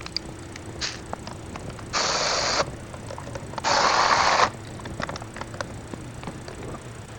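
Compressed air hissing in two short bursts, each starting and stopping abruptly, the second longer and louder, amid light clicks of tools being handled.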